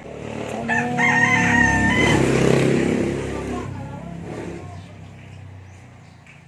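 A rooster crowing once, a single long call starting about a second in, over a low rumble.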